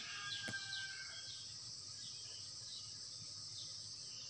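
Low background ambience: a steady high hiss with short, faint chirps, and a single sharp click about half a second in.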